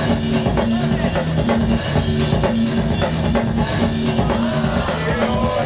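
Loud DJ music with a steady drum-kit beat over a repeating bass line.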